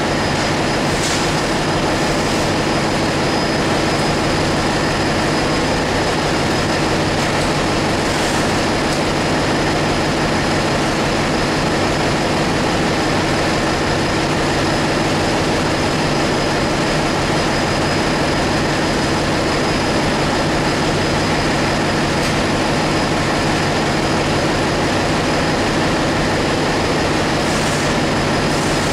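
Loud, steady din of a ship's engine-room machinery running, with a constant low hum and a thin high whine over it.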